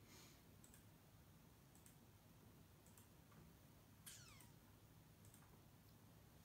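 Near silence: room tone with a few faint soft clicks, and one brief high squeak about four seconds in that falls steeply in pitch.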